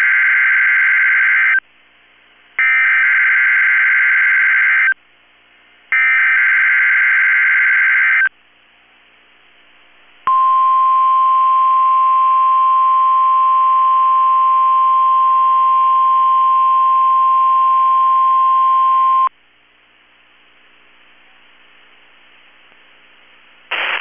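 NOAA Weather Radio Emergency Alert System activation: three bursts of the SAME header's warbling digital data tones about a second apart, then the steady 1050 Hz warning alarm tone held for about nine seconds. It marks the start of a test tornado warning broadcast.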